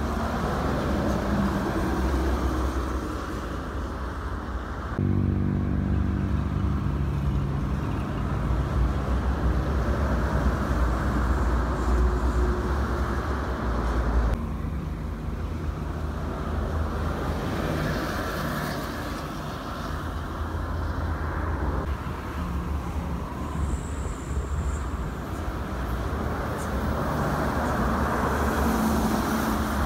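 Toll-road traffic: intercity coaches and cars driving past at speed, a steady low rumble of engines and tyres. The sound changes abruptly about 5, 14 and 22 seconds in, where one short roadside clip cuts to the next.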